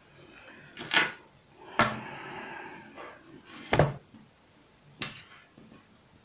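Hands handling fishing tackle on a tabletop: four knocks, the loudest a little under four seconds in, with a short rubbing, sliding sound after the second.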